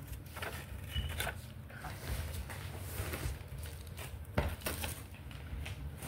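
Scattered light clicks and knocks of small hard objects being handled, the sharpest about four seconds in, over a low rumble.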